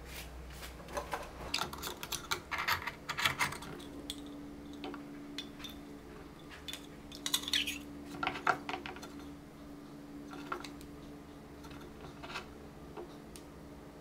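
Small metal fork and spoon clicking and scraping against raw oyster shells on a wooden plate: two busy runs of sharp clinks, then a few scattered taps.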